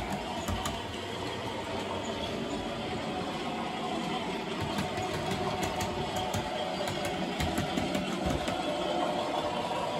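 Model railway locomotive running along the track with a steady whirring hum, with a few light clicks from the wheels.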